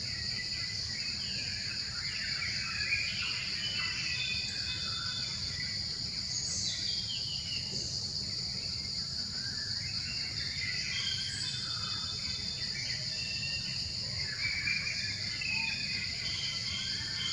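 Steady, high-pitched drone of insects with birds chirping on and off, louder in bursts about two to five seconds in, around ten to eleven seconds in and again near the end, over a low steady rumble.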